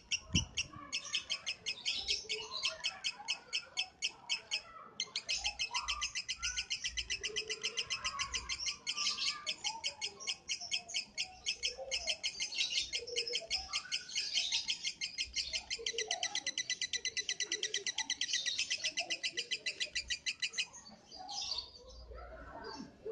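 Lovebird singing a long, rapid, unbroken trill of high repeated chirps, pausing briefly about five seconds in and stopping about three seconds before the end, followed by a few scattered calls.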